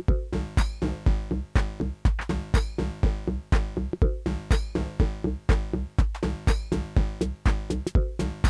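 Live techno played on hardware drum machines and analogue synthesizers: a steady four-on-the-floor kick about twice a second, offbeat hi-hats and a repeating synth bassline.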